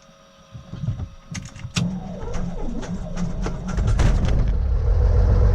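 A 1969 Cessna 182M's six-cylinder Continental O-470 engine being started. A few clicks come about a second and a half in, then the starter turns the engine over with a steady low drone. About four seconds in the engine catches and runs, much louder and steady.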